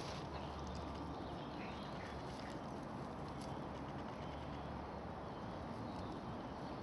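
Steady outdoor hiss of woodland air with a low rumble, and a few faint high chirps.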